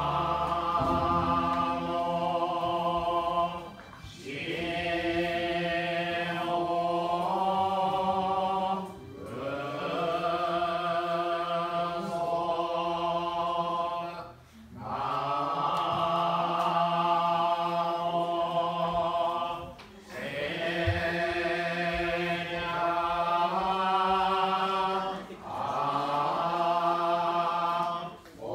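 A group of Japanese Buddhist monks chanting a sutra together in long, held melodic phrases, pausing briefly for breath about every five seconds.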